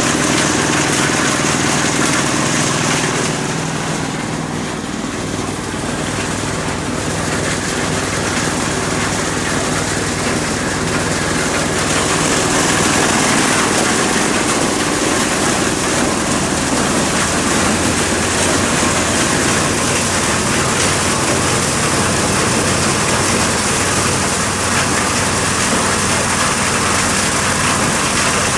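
Engine-driven corn sheller running, the steady hum of its engine under a loud rushing, rattling noise as it threshes whole unhusked ears. It eases off slightly for a few seconds about four seconds in, then comes back up.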